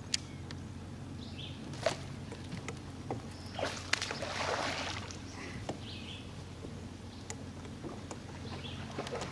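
Bass fishing from a boat: a few sharp clicks and taps of rod, reel and boat deck, then a rushing, splashing burst lasting about a second and a half, about four seconds in, as the hook is set on a largemouth bass. A low steady hum runs underneath, with faint bird chirps now and then.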